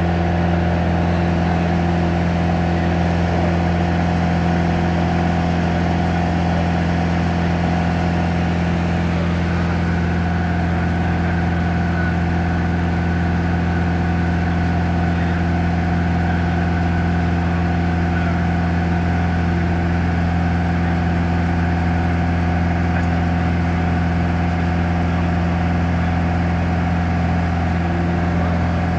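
Light touring aircraft's engine and propeller droning steadily in cruise, at an unchanging pitch.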